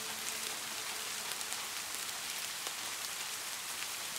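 Steady rain: an even hiss with scattered single drops ticking.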